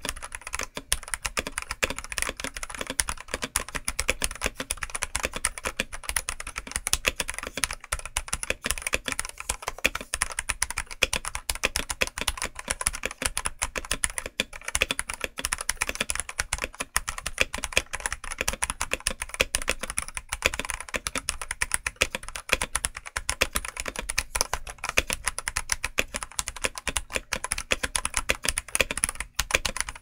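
Continuous fast typing on a stock, unmodified Risophy PC404 75% mechanical keyboard with Huano Red switches and PBT keycaps: a dense, unbroken stream of keystroke clacks.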